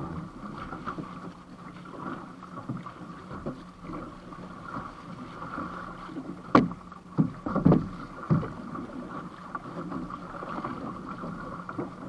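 Water rushing and splashing along the hull and outrigger float of an outrigger canoe under way, with wind on the microphone. A cluster of four sharp knocks comes a little past the middle.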